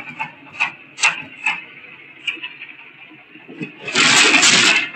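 A small cargo tricycle's engine runs with a steady high tone, with a few sharp knocks. About four seconds in, a loud burst of crashing noise lasting about a second comes as the loaded cart tips over into the ditch.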